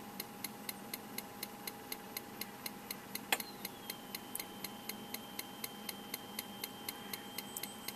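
Executive Mosquito Magnet's spark igniter clicking steadily, about four clicks a second. A little over three seconds in, one louder, more mechanical click: the propane solenoid opening and letting gas into the machine, a normal start-up. A faint steady high tone follows it.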